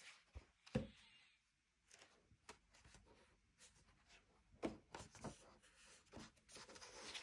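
Pages of a large hardback photo book being turned by hand: a few faint paper rustles and soft taps, with near silence between them.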